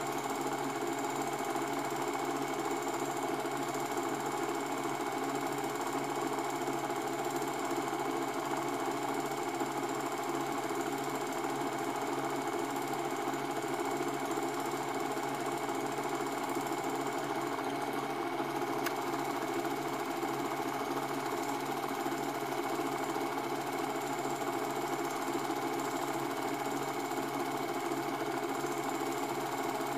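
Cine film projector running: a steady, even mechanical rattle of the film transport, with a constant hum beneath.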